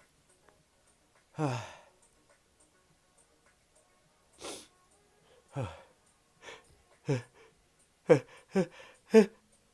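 A person sneezing in a fit: a string of short sneezes, each falling quickly in pitch, with a breathy puff between them. Three come in quick succession near the end and are the loudest.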